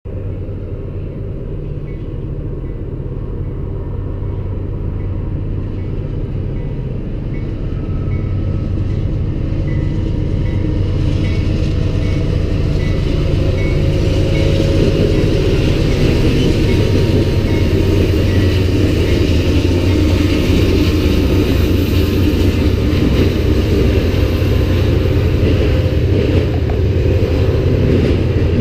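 Diesel locomotives of a CN freight train approaching and passing, a steady low engine drone that grows louder over the first fifteen seconds or so, followed by the rumble of freight cars rolling past.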